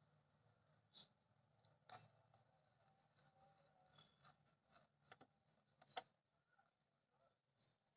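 Faint clicks and light plastic handling as a finger presses the plastic push buttons on a Bajaj Majesty JX4 juicer mixer grinder's control panel; the sharpest clicks come about two seconds in and about six seconds in.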